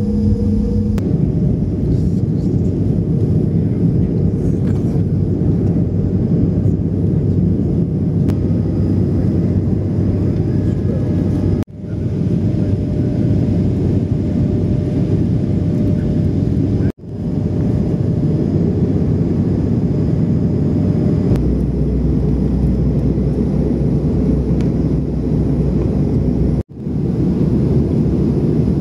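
Jet airliner cabin noise heard at a window seat: a steady, dense rumble of engines and airflow. A humming tone stops about a second in, and the sound drops out abruptly three times, about 12, 17 and 27 seconds in.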